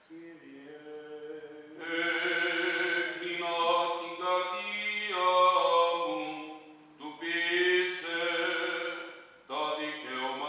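A male voice chanting Greek Orthodox Byzantine chant in long, slowly moving sung lines. It starts softly, grows louder about two seconds in, and breaks off briefly twice for breath near the end.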